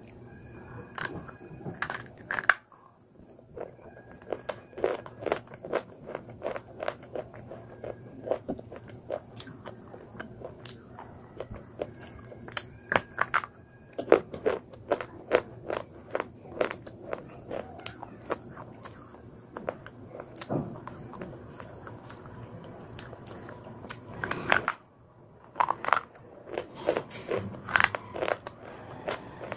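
Slate pencil pieces being bitten and chewed: a rapid, irregular run of sharp crunches and clicks, broken by two short pauses.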